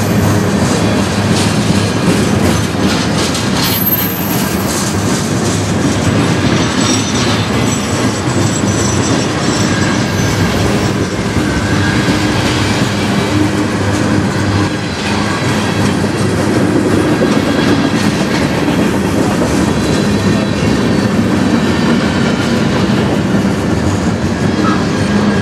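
Freight cars of a manifest train, tank cars and flatcars, rolling past at close range: a steady loud rumble of steel wheels on rail with clickety-clack over the rail joints. Thin, high wheel squeals come and go.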